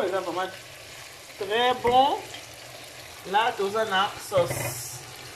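A pan of carrot-and-onion sauce sizzling on the hob, with a voice in three short untranscribed phrases over it and a brief sharper hiss near the end.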